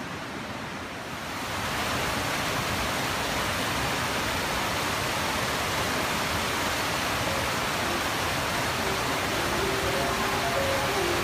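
Stream water rushing over rocks: a steady, even rush that gets louder about a second and a half in.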